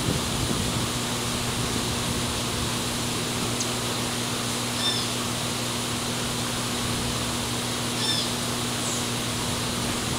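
Steady outdoor background hiss with a low, even hum, and a small bird giving a short two-note chirp twice, about five and eight seconds in.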